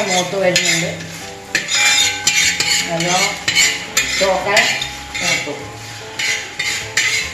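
A metal spoon scraping and stirring coriander seeds and dried red chillies as they dry-roast in a large metal pan, in repeated rasping scrapes with a light rattle of seeds on the metal.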